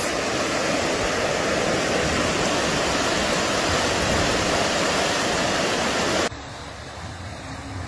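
Floodwater rushing down a street in a steady, loud torrent of noise; about six seconds in it drops suddenly to a quieter rush.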